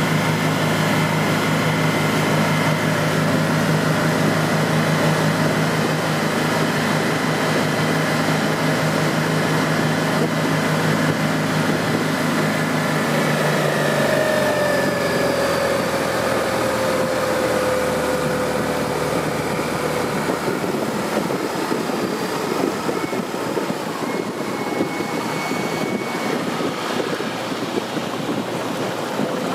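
Outboard motor of a small tender boat running at speed, with water rushing in its wake. About halfway through, the steady engine note changes and a falling whine follows, then the motor runs on a little quieter.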